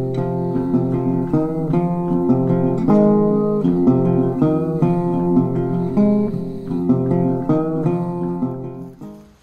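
Instrumental music with plucked guitar notes over a steady run of chords, fading out near the end.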